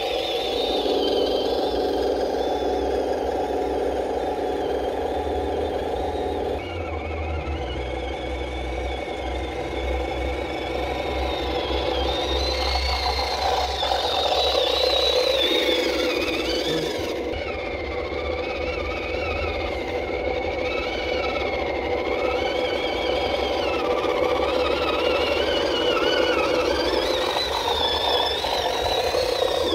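A 1/12-scale RC CROSS KrAZ 260 6x6 model truck driving through shallow water, its electric drivetrain giving a steady mechanical whine whose higher tone wavers in pitch as the speed changes. The sound shifts abruptly a few times.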